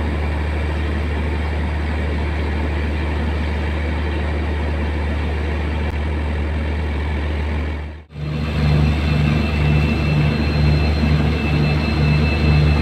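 A steady low drone as an electric locomotive runs in. After a sudden cut about eight seconds in, a WDP4D diesel-electric locomotive idles with a low throb about twice a second and a thin high whine.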